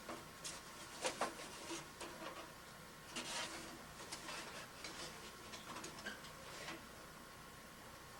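Irregular light clicks and taps with a short rustling scrape about three seconds in, from a bird trapped in a furnace pipe and the tongs reaching in after it.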